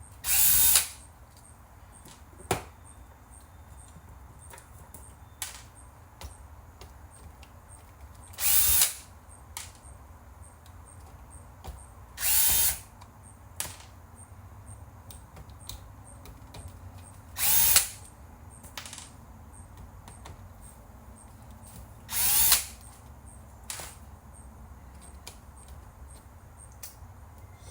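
Cordless power screwdriver running in five short bursts, each under a second, spinning up and down as it backs out screws. There are a few light clicks in between.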